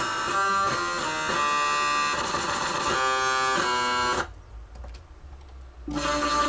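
Electronic keyboard making weird sounds: a quick run of changing pitched notes and chords that breaks off about four seconds in, leaving a low hum, then starts again near the end.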